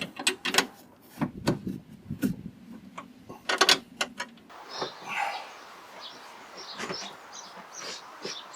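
Irregular metallic clinks and knocks of hand tools working the bolts of a Porsche 996's rear coffin arms. About halfway in they give way to a steady hiss with faint high chirps.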